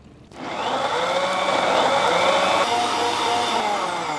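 Electric blender starting up about a third of a second in and running steadily, whirring as it purées chopped apple, muskmelon and green grapes with water, easing a little near the end.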